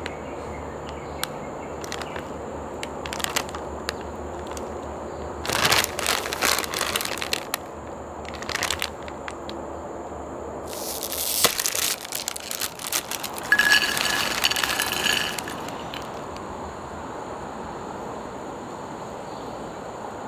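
Shiny plastic Kurkure snack bag crinkling as it is handled and turned over, in three bursts, the last and longest in the second half.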